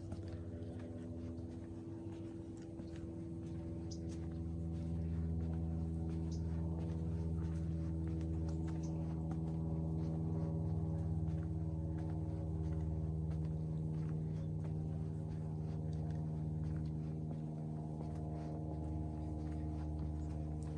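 A machine's steady hum made of several even tones, growing a little louder after a few seconds and then holding, with faint footsteps.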